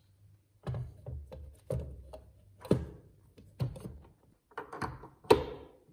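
Plastic bean hopper and its lid being fitted and locked onto the built-in grinder of a Sage (Breville) Barista Express 870 espresso machine: a series of knocks and clicks, the loudest near the end.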